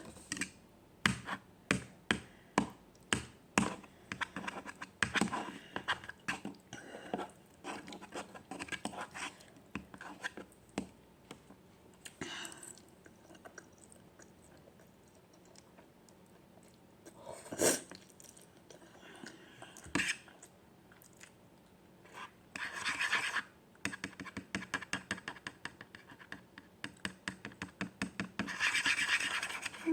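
A person eating instant noodles close to the microphone, chewing with quick regular mouth sounds about twice a second at first, then more sparsely. A few longer noisy bursts come in the second half.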